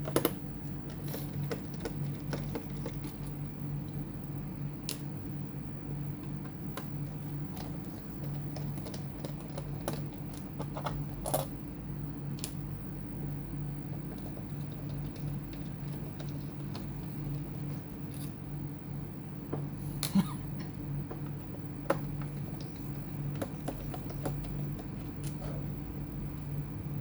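Scattered small clicks and taps of hands and tools on a laptop's plastic case and parts, with a few sharper knocks, over a steady low hum.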